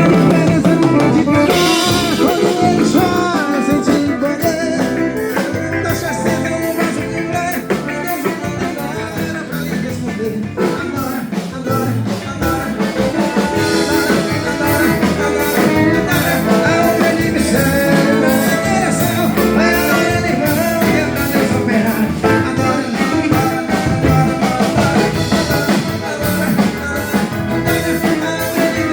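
Band music playing continuously with a steady beat during a soundcheck.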